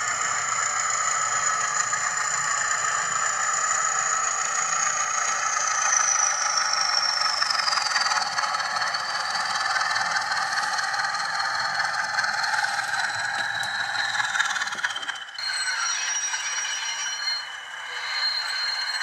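Zimo sound decoder in a Bachmann class 20 model locomotive playing class 20 diesel engine sounds through the model's small speaker: a steady, thin engine drone with no bass and a high whine that slowly falls in pitch. About fifteen seconds in the sound drops briefly and changes.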